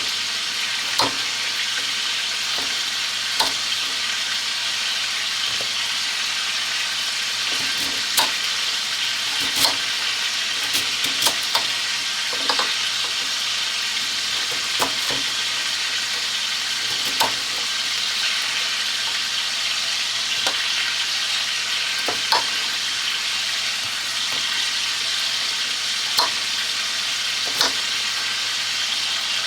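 Food sizzling in a skillet, a steady hiss, with a short sharp tap every second or two.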